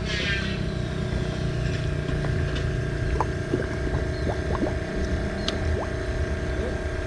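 A steady low engine hum with a constant tone through it, and a few faint short chirps over it.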